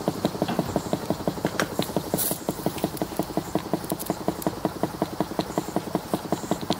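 Stuart 10H model steam engine, a single-cylinder double-acting horizontal engine, running with a quick, even beat of exhaust chuffs as it uses up the last of its steam after the fire has gone out.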